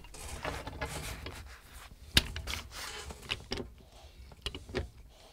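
Two pipe wrenches tightening a threaded joint in 3/4-inch black steel gas pipe: scattered metal clicks and taps as the jaws grip and turn, with one sharper click about two seconds in.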